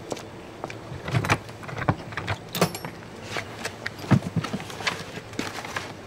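Irregular knocks, clatters and rustles as hands rummage through the contents of an opened shipping crate.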